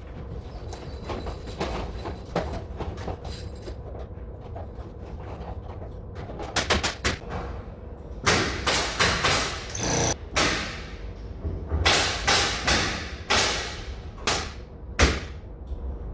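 A run of sharp knocks and thuds from ceiling construction work, sparse at first and then about two or three a second from around eight seconds in, with a brief thin high whine near the start.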